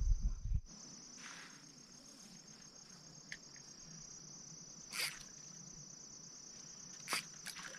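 Insects keeping up a steady, high, finely pulsing trill. A low rumble sounds in the first half-second, and two brief sharp noises come about five and seven seconds in.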